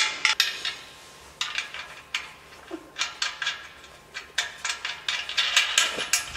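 Slackline webbing being fed and pulled through a steel frame fitting by hand: short scraping rustles with light metallic clinks, coming in bursts and busiest near the end.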